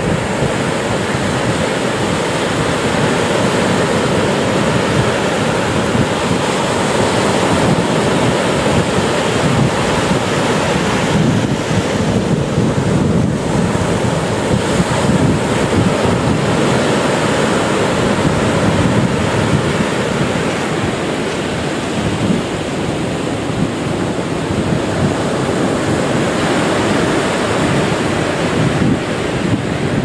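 Ocean surf: waves breaking and washing in as a continuous rush that swells and eases slightly.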